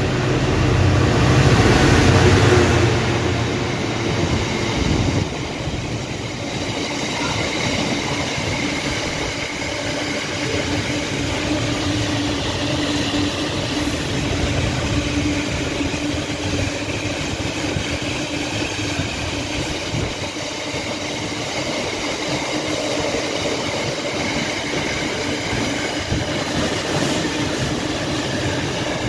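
A train running along the track: a loud rumble in the first few seconds settles into a steady noise of wheels on rail with a faint, even hum.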